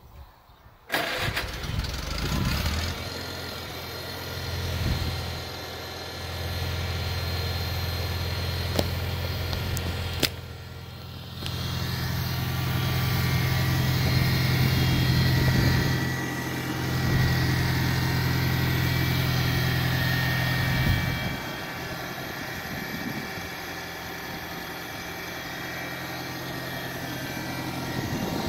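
1952 Farmall Cub's small four-cylinder flathead gasoline engine starting about a second in, then running, its speed rising and falling, and settling at a lower steady pace for the last several seconds.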